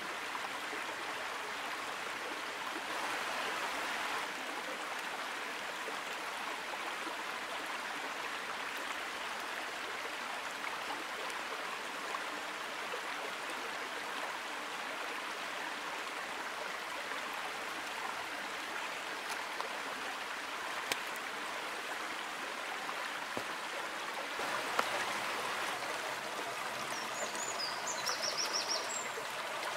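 Small forest stream flowing over rocks, a steady rush of running water.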